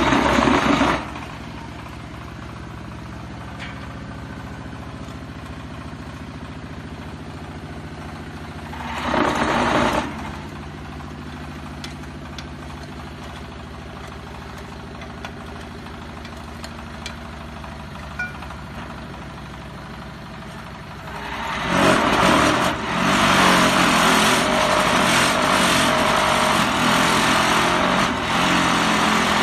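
Diesel engine running steadily, powering a concrete hollow block making machine. The machine's mould vibrator comes on with a loud rattling shake that compacts the concrete mix: briefly at the start, for about a second near nine seconds in, and from about twenty-two seconds in onward.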